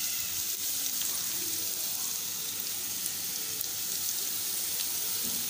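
Sliced small onions (shallots), green chillies and curry leaves frying in coconut oil in a wok, a steady sizzle, just after chilli and turmeric powder have been tipped in.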